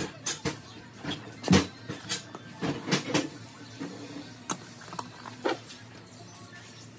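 Scattered clicks and knocks of kitchen handling: a salt canister, a spice jar and a metal spoon tapping against plastic divided plates and the countertop. The loudest knock comes about a second and a half in.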